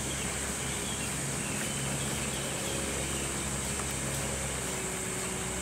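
Steady background ambience: a constant low hum under an even, high-pitched hiss, with no distinct event standing out.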